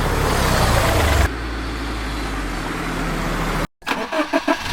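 Motor vehicle engine sound effect: a loud rush of noise for about a second, then a steadier, lower running sound that cuts off abruptly near the end, followed by a few short pitched sounds.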